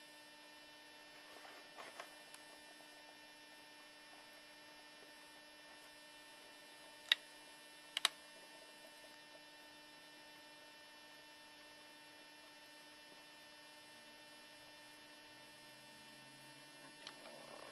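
Steady low electrical mains hum, with two brief faint clicks about seven and eight seconds in.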